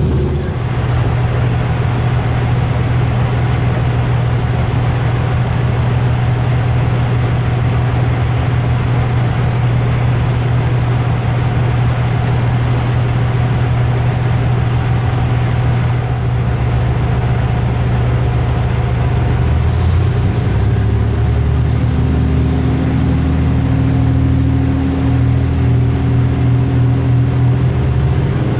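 Diesel railcar running along the line, a steady low engine drone over running noise. About twenty seconds in, the engine note shifts and a higher steady tone joins it.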